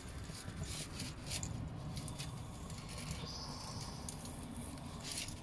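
Gas burner flame running steadily while a raw chicken is turned in it to singe off leftover feathers, with scattered faint crackles.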